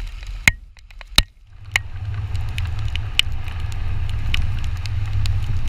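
Wind and road noise on a camera mounted on the outside of a moving car on a wet road: a steady low rumble, with scattered sharp ticks and a brief drop-out about a second in.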